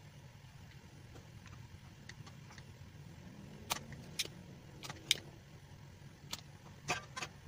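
Spring-loaded desoldering pump being cocked and fired over a circuit board, sucking molten solder off the pads of a large capacitor: a string of about seven sharp clicks and snaps starting a few seconds in. A faint steady low hum lies underneath.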